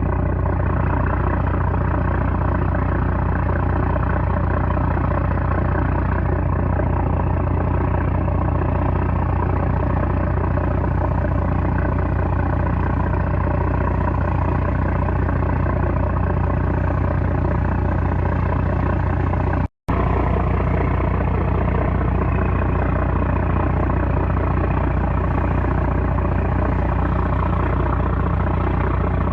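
Small trawler's 330-horsepower engine running steadily at a constant speed, a loud, even drone. The sound cuts out for a split second about two-thirds of the way through.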